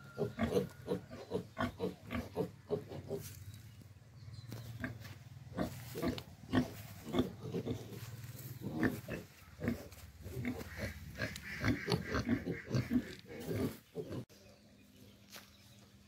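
Pigs grunting: a quick run of short grunts, several a second, which stops about two seconds before the end.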